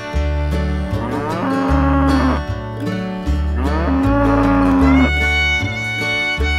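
Cows mooing twice, two long lows that rise and fall in pitch, over background music with steady bass notes.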